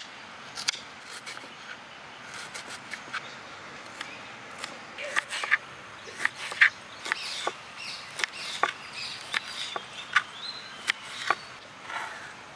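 Kitchen knife chopping red onion and then green chillies on a wooden cutting board: irregular sharp taps, coming faster and louder from about five seconds in.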